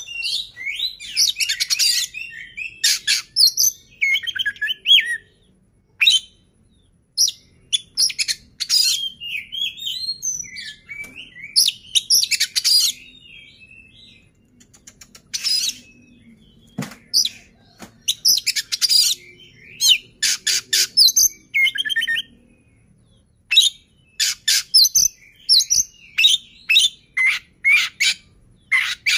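An oriental magpie-robin singing in loud, varied phrases of quick high whistles, chirps and rapid trills, broken by short pauses.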